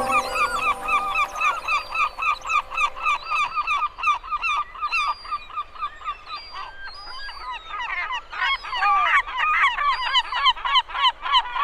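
A flock of gulls calling: rapid, short repeated calls, several a second. The calls grow denser and overlap as more birds join about two-thirds of the way in.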